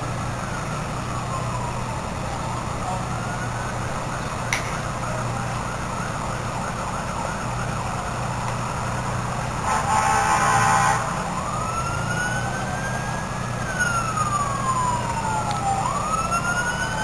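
Fire engine siren wailing up and down, getting louder and overlapping with a second wail near the end as emergency vehicles arrive. A loud horn blast of about a second comes about ten seconds in.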